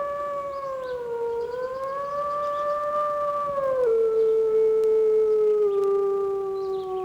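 One long, unbroken howl holding a steady note, dropping suddenly to a lower note about halfway through and sliding down as it ends.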